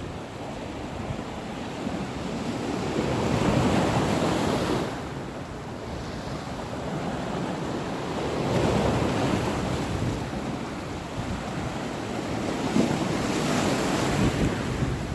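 Ocean waves surging and washing in, swelling and ebbing about three times, with wind rumbling on the microphone.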